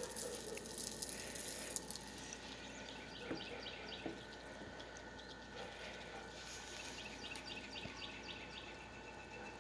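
Corn pattering onto the ground as it is poured out for the geese, for about the first two seconds. After that, a quiet yard with a few soft taps and small birds chirping in short repeated trills in the background.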